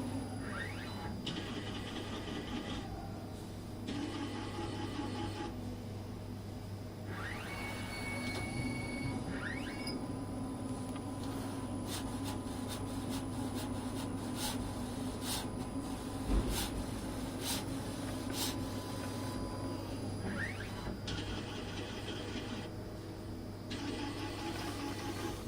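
3D printer stepper motors whining as the print head and axes move: steady tones that jump in pitch with each change of move, short rising glides, a steady hum beneath, and one dull knock about two-thirds of the way through.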